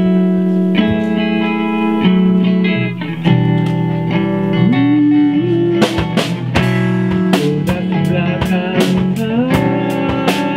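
Rock band playing an instrumental intro: electric guitar chords ringing over bass, with a note sliding upward twice, and drums and cymbals striking in strongly about six seconds in.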